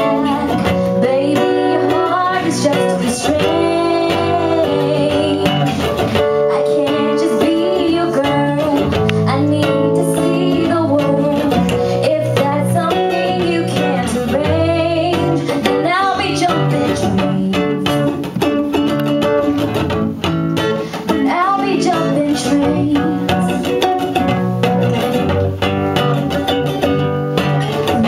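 A woman singing live through a handheld microphone, accompanied by an acoustic guitar, in an acoustic pop cover.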